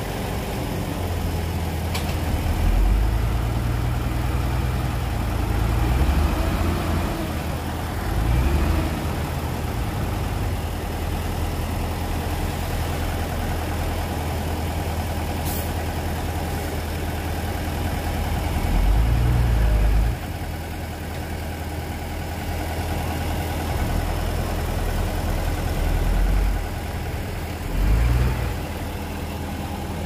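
Heavy diesel engines of earthmoving machinery running at a low rumble, revving up briefly several times.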